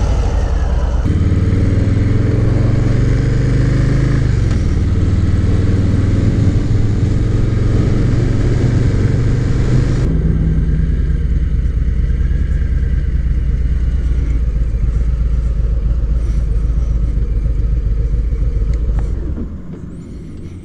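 Harley-Davidson Low Rider's Milwaukee-Eight 107 V-twin running just after a start, as the bike pulls away and rides slowly, its pitch stepping up and down with the throttle a few times. Near the end the engine sound falls away much quieter as the bike stops.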